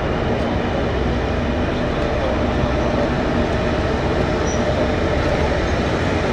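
BelAZ 75710 mining dump truck running as it drives, its twin MTU 16-cylinder diesel engines making a steady, even drone.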